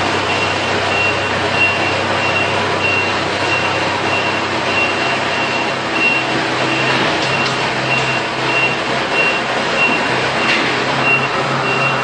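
Kubota DC-70 combine harvester's diesel engine running steadily as the machine is driven and turned, with a warning beeper sounding over it in a regular, evenly spaced pattern. The engine hum grows stronger about halfway through, and a few faint clicks come near the middle and later on.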